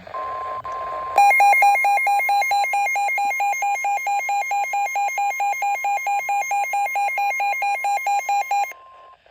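NOAA Weather Radio warning alarm tone: a steady single 1050 Hz tone, over faint radio static at first. About a second in, a louder electronic alarm joins it, alternating between a low and a high pitch about four or five times a second. The alarm stops shortly before the steady tone ends near the end.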